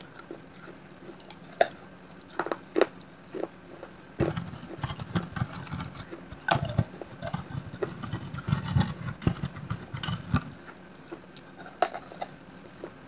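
Baked clay pot (gullak) being bitten and chewed: a few sharp crunches, then about six seconds of dense crunchy chewing from about four seconds in, and another crisp bite near the end.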